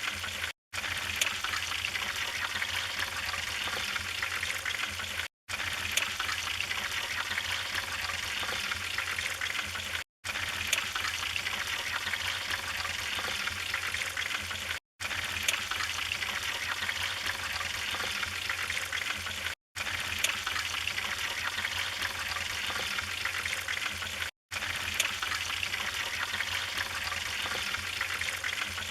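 Wood fire burning in a fireplace: a steady crackling hiss with scattered sharp pops. It cuts out for a split second about every five seconds, six times.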